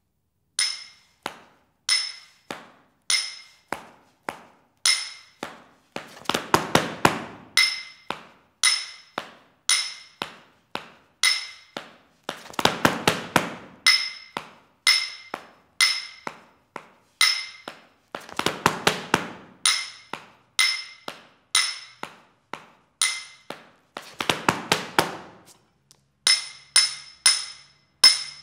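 Tap shoes striking a hard floor in a steady beat of single taps about once a second, each with a short bright ring. Four times the beat breaks into a quick flurry of rapid taps.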